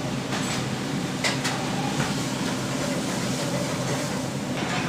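Steady mechanical hum with a few light clicks in the first two seconds.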